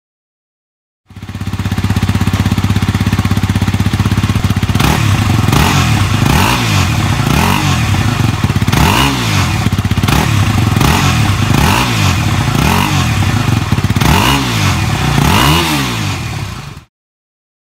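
Yamaha WR250R's 250 cc single-cylinder four-stroke engine through its stock exhaust. It idles steadily for a few seconds, then is blipped in a run of about ten short revs, roughly one a second, each rising and falling back to idle. It starts about a second in and stops shortly before the end.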